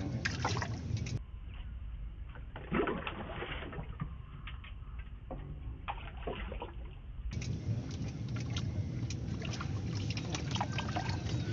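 Water splashing and sloshing in irregular bursts as a hooked fish thrashes at the surface and is landed with a net beside the fishing platform.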